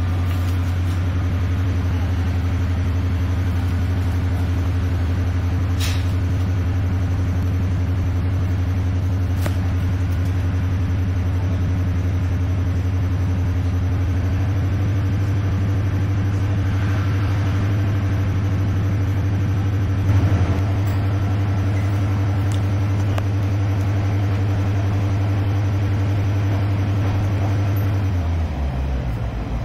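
Diesel multiple unit's underfloor engine running steadily under power, heard from inside the carriage. Near the end the engine note drops and quietens.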